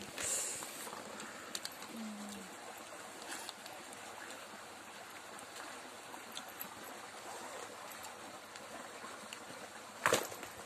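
Steady rushing of a shallow stream flowing over stones, with a few faint clicks and a sharper knock near the end.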